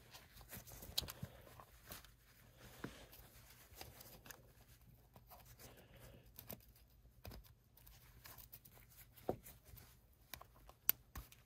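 Faint scraping and small clicks as a thin tool pries rubber O-rings off the metal compression nosepiece of a telescope field flattener, with a few sharper snaps as the rings pop free, the sharpest near the end.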